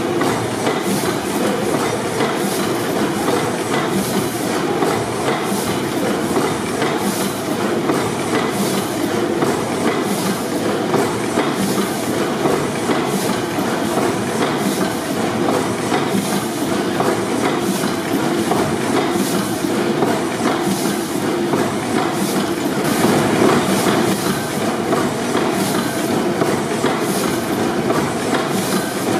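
Snow 600 HP four-stroke gas pipeline compressor engine running steadily, with the even, rhythmic clatter of its piston rods, crossheads and valve gear.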